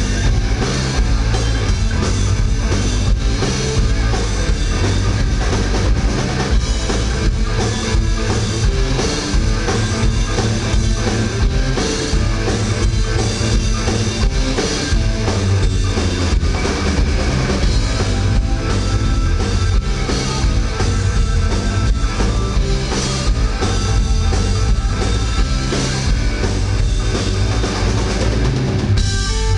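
Live rock band playing loud, with drums and bass heavy in the mix. Right at the end the drums drop out, leaving a few separate guitar notes.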